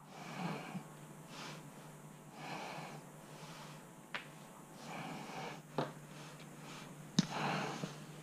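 Soft breathing close to the microphone, about one breath every two seconds, with a few sharp clicks and a steady low hum.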